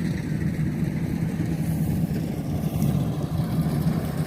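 Kubota DC93 combine harvester's diesel engine running steadily while cutting rice in a waterlogged field, a continuous low hum.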